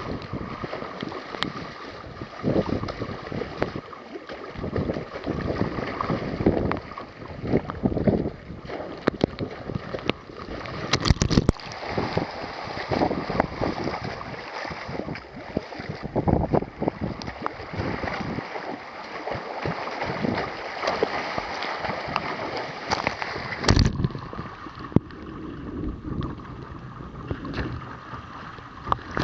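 Water sloshing and splashing around a kayak riding small waves, with wind buffeting the microphone in uneven gusts. A few sharper hits stand out, about eleven seconds in and again near the end.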